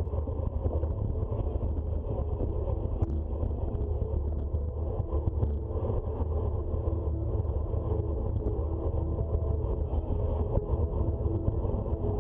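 Steady low wind rumble on the microphone of a ride camera on a moving road bike, with road noise underneath and a few faint ticks.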